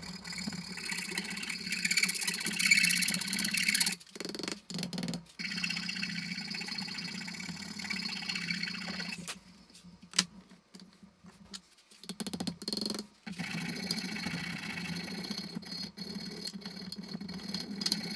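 An electric power tool's motor running with a steady hum and a hissing grind, the kind made by abrasive working metal. It cuts out briefly about four seconds in and drops away for a couple of seconds in the middle, with a single sharp click, before running again.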